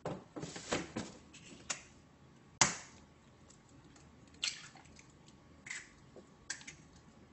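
Eggshells cracking as eggs are broken by hand into a bowl: a handful of sharp cracks and small clicks of shell, the loudest about two and a half seconds in.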